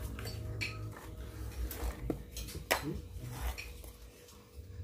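Spoons and cutlery clinking against plates and pots as people eat, a handful of separate sharp clinks spread through the moment.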